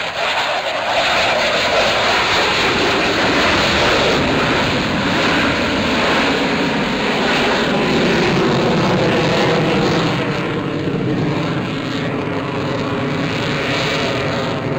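Loud jet noise from an F-22 Raptor's two afterburning turbofan engines as it flies its display. The noise swells about a second in and eases a little after about ten seconds.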